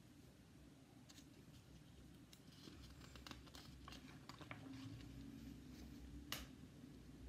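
Near silence: room tone, with faint paper rustling and small clicks as the pages of a paperback picture book are handled and turned, and one sharper click near the end.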